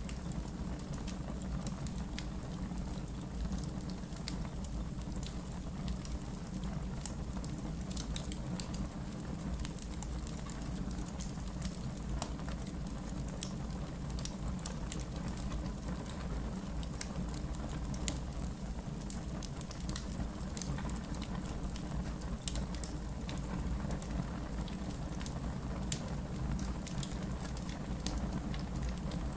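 Wood fire in a fireplace crackling, with frequent small sharp pops over a steady low rumble of the flames; one pop, about two-thirds of the way in, stands out louder than the rest.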